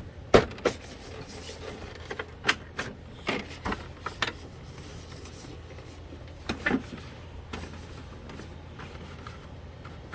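Rubbing and scraping with scattered knocks and clicks as a printer's plastic housing is wiped and handled during cleaning, over a low steady hum.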